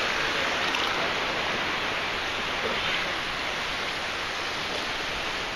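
Shallow surf washing at the shoreline: a steady rushing hiss of water that eases off slightly toward the end.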